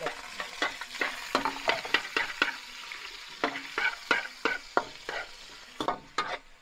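Minced pork sizzling in a wok while a spatula scrapes and knocks against the pan in quick, irregular strokes as it is stir-fried.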